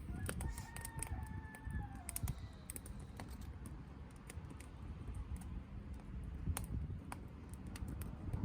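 Conifer wood burning in a small Solo Stove-style wood stove, crackling and snapping irregularly over a low steady rumble. A faint, slightly falling whistling tone comes through in the first two seconds or so.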